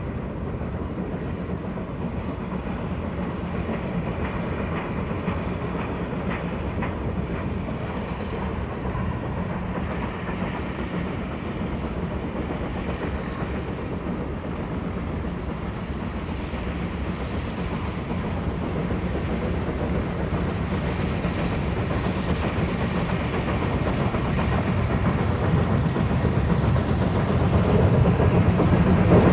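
Baldwin 2-8-2 steam locomotive pulling a passenger train, growing steadily louder as it approaches over the second half.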